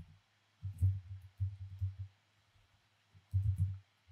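Computer keyboard typing a word, heard as quick runs of dull low taps with faint clicks: one run about a second in and another near the end.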